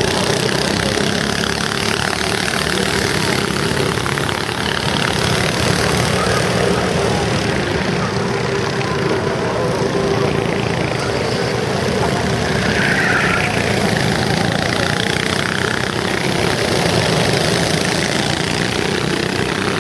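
Go-kart engines running steadily as karts lap the track.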